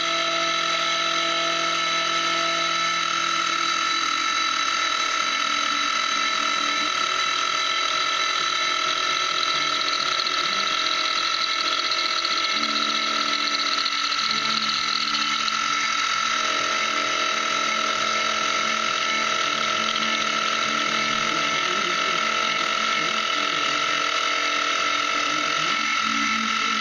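Benchtop milling machine running, its end mill cutting metal knife bolster blanks: a steady high machine tone, with the lower note of the cut shifting a few times as the cutter feeds along the parts.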